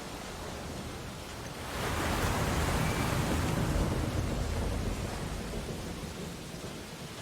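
Ocean surf: a wave swells and breaks about two seconds in, then washes out and fades over the next few seconds, over a steady hiss of surf.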